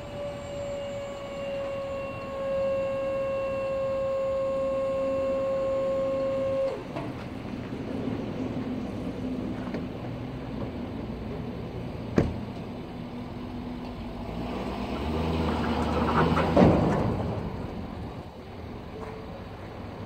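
Electric motor on a tilt-deck container trailer whining steadily under load, its pitch sagging slightly, then cutting off abruptly about a third of the way in. Later comes a single sharp knock, then a louder rushing, clattering noise that swells and fades near the end.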